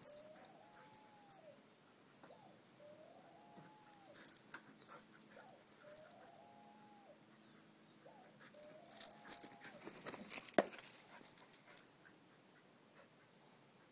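Dog whining in short rising-and-falling whimpers, four of them about two seconds apart, during rough play. Later comes a burst of sharp clicks and scuffling, the loudest part, then it goes quieter.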